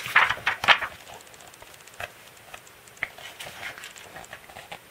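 Pages of a thick photo book being turned by hand: a quick paper swish and rustle in the first second, then a couple of light taps and softer rustling as the pages are smoothed flat.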